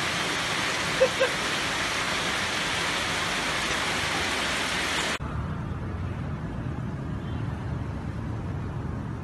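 Steady rain hissing down onto flooded ground, with two short sharp sounds about a second in. About five seconds in it cuts abruptly to a duller, lower rushing noise.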